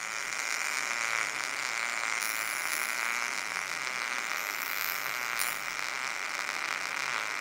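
MIG welding arc running steadily as a bead is laid on square tubing: a continuous, even crackle and hiss that starts abruptly.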